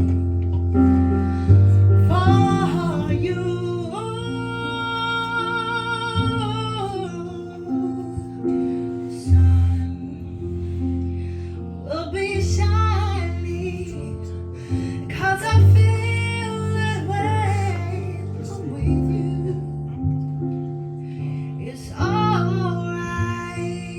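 A woman singing a slow song with vibrato, accompanied by plucked acoustic guitar and sustained low bass notes.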